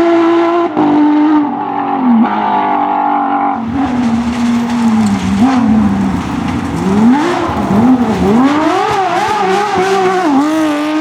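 Porsche racing car engine at high revs. The pitch falls away, then swings up and down several times in quick succession through gear changes and throttle blips, and climbs again near the end.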